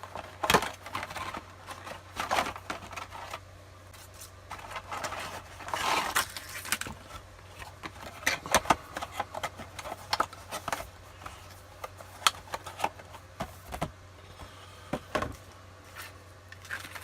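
Plastic model-kit parts and sprues being handled on a tabletop: irregular clicks, taps and short scrapes over a faint steady low hum.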